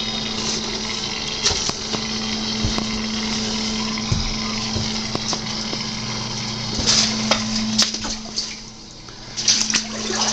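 Electric pump humming steadily over rushing water while a flooded basement is pumped out, with a few splashes and knocks in the last few seconds.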